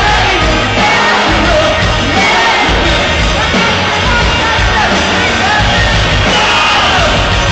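Live rock band playing loudly with a singer's voice over the top, picked up amid the crowd, with crowd noise mixed in.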